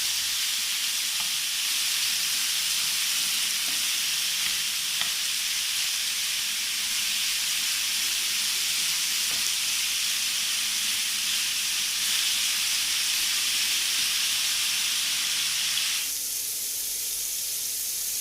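Soy-marinated chicken pieces frying in hot oil in a pan, a steady sizzle with a few faint clicks. Near the end the sizzle abruptly turns thinner and slightly quieter.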